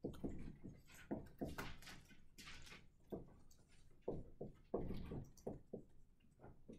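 Faint, irregular knocks, taps and rustles, with a brief hiss about two and a half seconds in.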